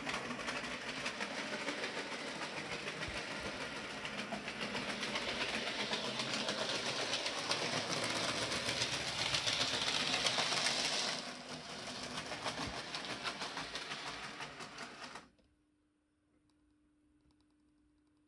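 00 gauge model locomotive pulling two coaches, its small electric motor whirring and its wheels rattling steadily over the track. It is loudest around ten seconds in as it passes close, eases a little soon after, and stops abruptly about fifteen seconds in.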